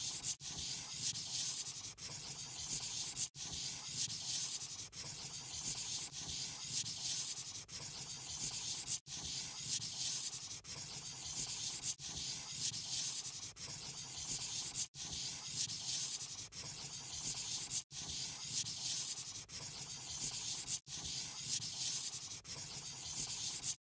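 Steady scratchy rubbing, like a crayon or marker scribbling on paper, used as the colouring-in sound effect. It breaks off briefly every few seconds and stops suddenly at the very end.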